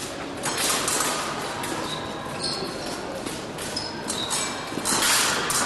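Épée blades clicking and clashing with brief high metallic rings, mixed with the thud of fencers' footwork on the piste, over a noisy background of a large hall.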